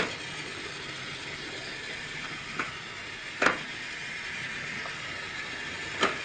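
Battery-powered toy train running on plastic track with a steady whir, with a few sharp clicks about two and a half, three and a half and six seconds in.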